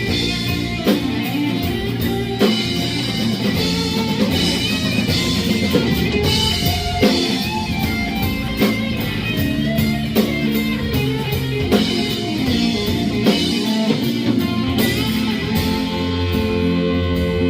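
Live band playing an instrumental passage, guitar over a drum kit, with no singing.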